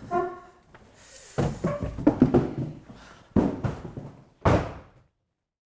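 Closing film score: a short brass-like note, then several heavy drum-like hits that each ring briefly, stopping dead about five seconds in.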